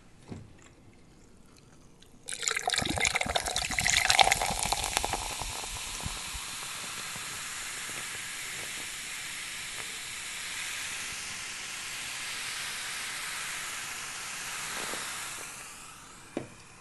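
A red soft drink is poured into a tall glass, loud and crackly at first, then fizzing in a steady hiss as the glass is held close. The fizz fades away near the end, and there is a short knock just before it ends.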